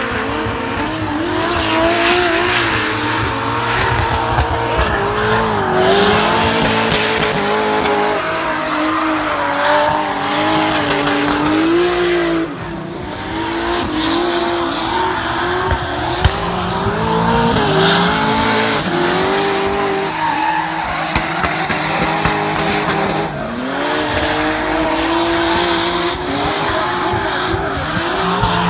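Drift car engine revving hard and rising and falling in pitch as it slides through the corners, with tyre squeal. The revs drop sharply twice, about twelve seconds in and again near the twenty-three second mark, then climb back up.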